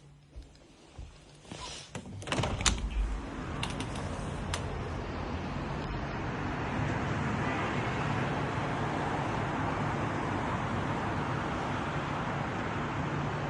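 A few clicks and knocks as a sliding door or window is opened, then a steady wash of outdoor street noise with traffic comes in and carries on.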